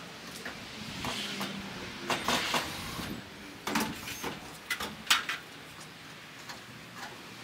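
Irregular knocks and clicks of hand work on a verandah roof overhead. They cluster about two to five seconds in.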